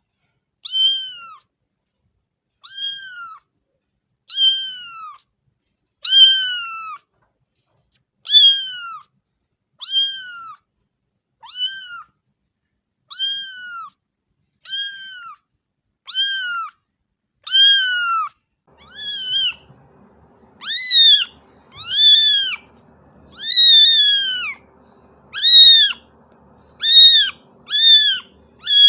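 Cat meowing over and over, high-pitched meows that rise and fall in pitch, about one every one and a half seconds. In the last third the meows get louder and come closer together, over a faint low background noise.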